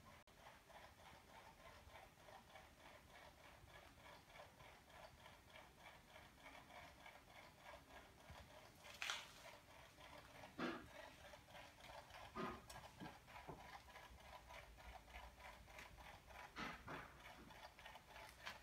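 Near silence: quiet room tone with a faint, steady ticking a few times a second. A handful of louder clicks or knocks come about halfway through and again near the end.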